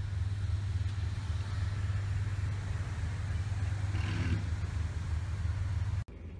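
Narrowboat engine running steadily, a low throb heard from on board; it cuts off suddenly near the end.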